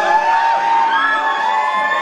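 Audience members whooping and yelling over the act's music, several drawn-out calls rising and falling in pitch.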